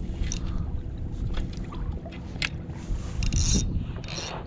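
Steady low rumble of wind on the microphone and water against a kayak's hull, with a few sharp clicks and brief high hisses from handling a spinning rod and reel, the longest hisses near the end.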